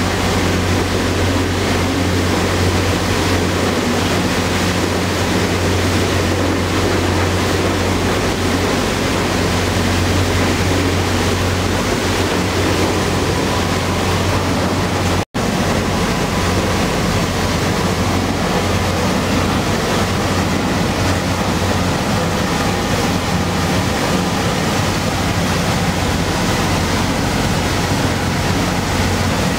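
Passenger ferry underway: a steady low engine drone under the rushing hiss of the churning wake, with wind on the microphone. The sound drops out for an instant about halfway, and after that the low drone is weaker and less steady.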